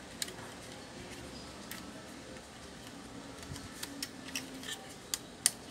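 Light plastic clicks and taps from hands seating a replacement print head and its ribbon cable in an Epson L120 printer's carriage, with the sharpest click near the end.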